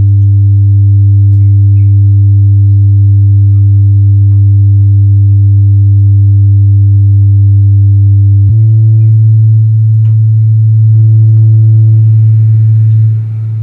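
Stacked ACR 6-inch subwoofers in plywood cabinets playing a loud, steady, low test tone. The tone steps up slightly in pitch about eight and a half seconds in and dips briefly in level near the end.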